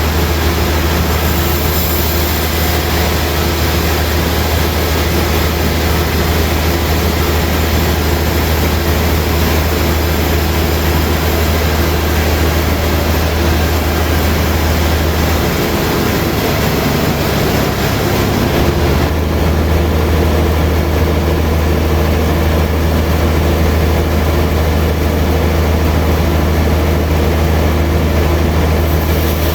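Sawmill machinery running steadily: a loud, constant low hum with a broad whirring noise over it. The hum wavers briefly a little past halfway, and the sound is duller from then on.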